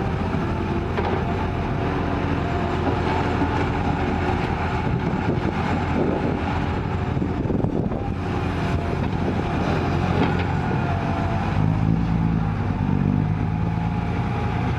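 Excavator's diesel engine running steadily under load, its pitch shifting as the hydraulics work the arm and bucket while it digs soil and loads a truck, with a few faint clunks.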